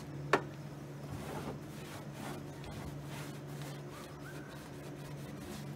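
Cloth towel rubbing against the underside of a car hood in uneven strokes, with one sharp click about a third of a second in. A steady low hum runs underneath.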